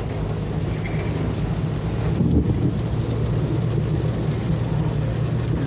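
Steady low rumble of a car driving, heard from inside the cabin, with a hiss of rain on the car. A brief louder swell comes about two seconds in.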